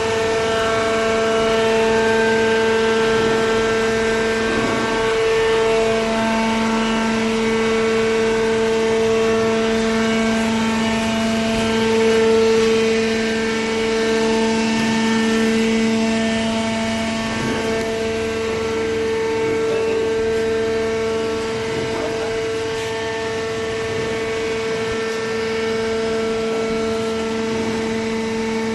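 High-speed OCC cardboard baler running with a loud, steady mechanical hum of several even pitches. The lower tone grows stronger about five seconds in.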